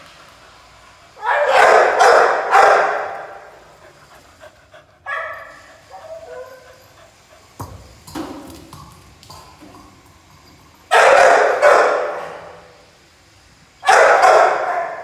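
Pitbull barking in three loud runs of two or three barks each, the barks ringing with echo in a large, bare shed; a shorter, higher whine comes around five seconds in.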